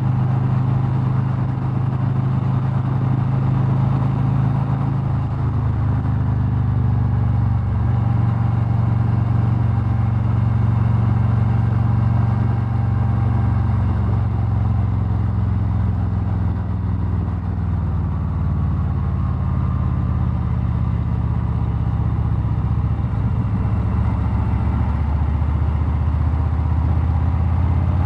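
Harley-Davidson Street Glide Special's V-twin engine running steadily at cruising speed, heard from the bike itself, with road and wind noise; the engine note shifts slightly a couple of times.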